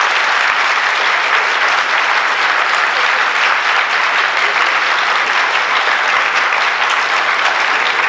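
A large audience applauding, a dense, steady clapping of many hands.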